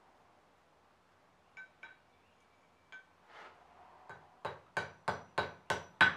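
Brass ferrule being seated onto a wooden screwdriver handle against a steel anvil. A few light metallic clinks come first, then a quick run of sharp knocks with a metallic ring, about three a second, getting louder toward the end.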